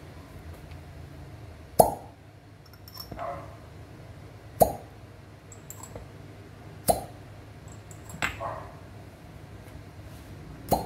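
Glass cupping cups set one after another onto a bare back in fire cupping, each landing with a sharp pop as the flame-heated cup seals; five pops a few seconds apart.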